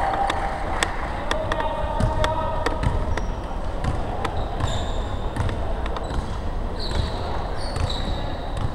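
Basketball bouncing on a hardwood gym floor during play, with repeated thuds and short high squeaks of sneakers on the court.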